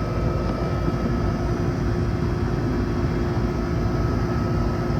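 Air conditioner's outdoor unit running steadily while it is being charged with refrigerant: a constant fan rush over a low rumble, with a steady compressor hum.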